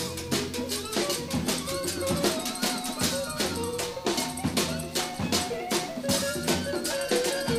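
A 1974 studio recording of a small band with drum kit and percussion, played back from a cassette dub of the master tape: busy drums and hand percussion strike in quick succession under long held bass and horn or organ notes.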